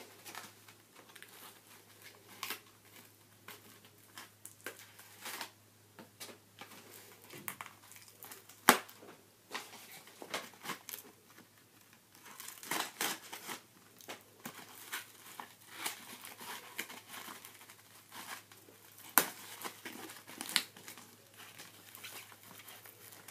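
The wrapping on a cardboard box of coconut hookah charcoal being slit with a knife and pulled open: irregular crinkling and tearing, with a few sharp clicks.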